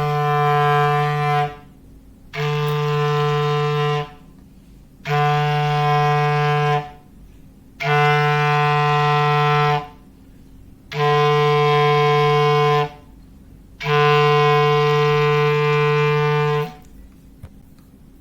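Foghorn sound effect: six long, steady blasts at one low pitch, separated by short gaps. The last blast is the longest.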